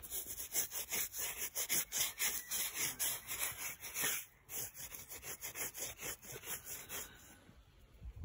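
Rapid scratchy rubbing, several strokes a second, stopping about seven seconds in, with a low thump at the very end.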